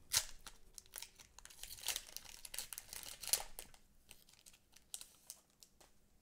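Foil wrapper of a Pokémon trading card booster pack crinkling and being torn open, in a run of crackly rustles that thin out after about four seconds.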